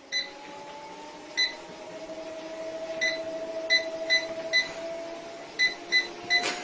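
Treadmill motor whining, its pitch rising slowly as the belt speeds up, with about ten short electronic beeps at uneven intervals and a single click near the end.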